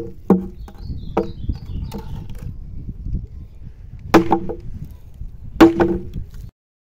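Hard wood-on-wood knocks on a wooden tabletop: a few lighter knocks, then two loud blows about a second and a half apart, each with a short hollow ring from the table. The sound cuts off suddenly near the end.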